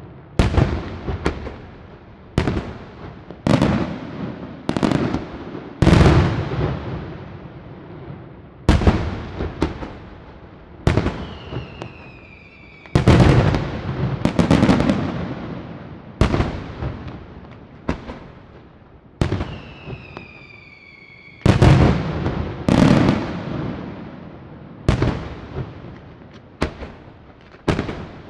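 Aerial firework shells bursting one after another, a bang every one to two seconds, each trailing off into a rolling echo. Twice a whistle falls in pitch between the bursts.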